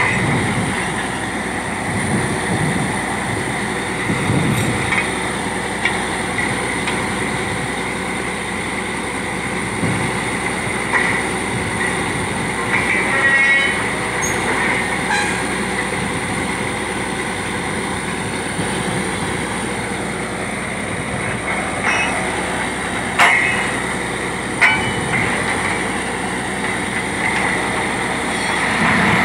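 Truck-mounted borewell drilling rig running steadily as it drills, its engine and compressor making a constant dense drone with a steady high whine. Two sharp knocks come about two-thirds of the way through.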